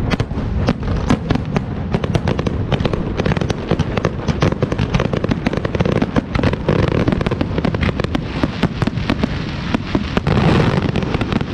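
Fireworks display: a dense, continuous barrage of bangs and crackles over a low rumble, swelling louder about ten seconds in.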